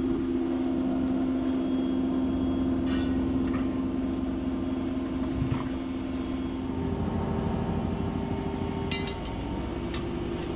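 An engine running steadily with an even hum; its pitch shifts a little about seven seconds in. A few light clicks from tire work sound over it.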